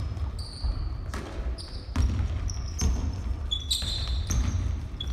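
A basketball bouncing on a wooden gym floor, with basketball shoes squeaking on the court several times, loudest about four seconds in.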